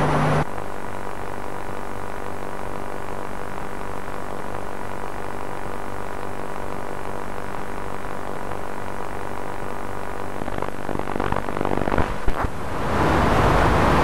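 A steady low droning hum made of many layered tones, the ominous drone of a horror soundtrack. Near the end there is a sharp click, then loud hissing static like a broken-up videotape.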